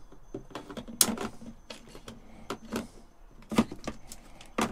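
Handling noise: irregular clicks and knocks, with sharper knocks about a second in, after three and a half seconds and near the end.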